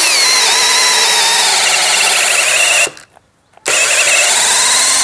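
DCK KDJZ03-13 cordless brushless drill in second gear boring a 19 mm auger bit into meranti hardwood: the motor's whine sags and wavers under the load, stops a little under three seconds in, then starts again under a second later and keeps drilling. This is the loss of power under load that the driller notes, though the drill still carries on.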